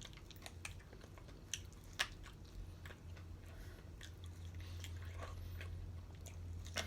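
A person chewing and biting chicken wings close to the microphone: faint, scattered wet mouth clicks and small crunches, over a low steady hum.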